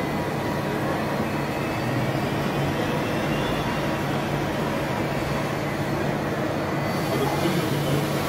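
Mazak Integrex 30Y CNC multitasking lathe running, a steady machine hum as its main spindle speeds up from about 1,400 to about 2,100 rpm. A hiss of coolant spray grows louder near the end.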